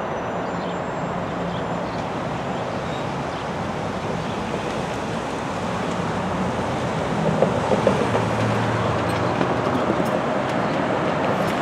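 Steady road-traffic noise at a light-rail grade crossing. About seven seconds in it grows louder, with a low engine sound and a few knocks, as cars start moving across once the gates are up.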